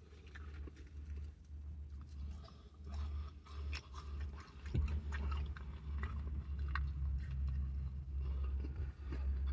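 A man chewing a mouthful of smash steakburger, with small smacking clicks throughout. A steady low hum runs underneath.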